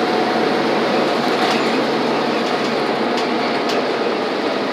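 City transit bus cabin noise while driving: steady engine and road noise with a faint whine, and a few light rattling clicks.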